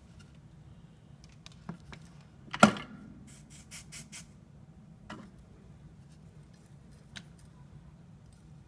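Scattered clicks and light knocks of small hard objects being handled, with one much louder knock about two and a half seconds in followed by a quick run of short high ticks, over a faint steady low hum.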